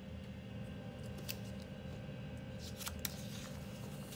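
A sheet of paper being handled and moved on a tabletop: a few light clicks, one about a second in and three close together near three seconds, followed by a short rustle, over a faint steady hum.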